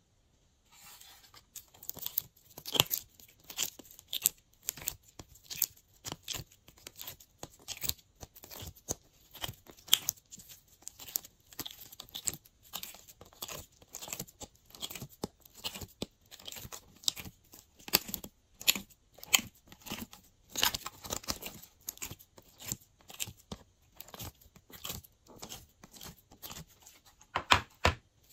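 Glossy jelly slime squeezed and squished in a hand, giving irregular sticky crackles and pops, about two a second, starting about a second in.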